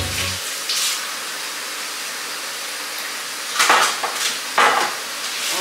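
Kitchen tap running steadily while raw meat is rinsed under it. There are louder splashes and handling sounds about a second in and twice near the end.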